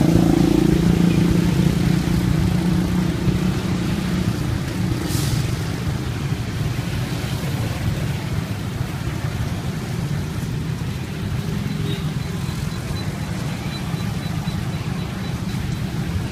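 Street traffic: a motor vehicle engine runs with a steady low hum that is loudest at the start and eases off over the first few seconds, over continuous road noise.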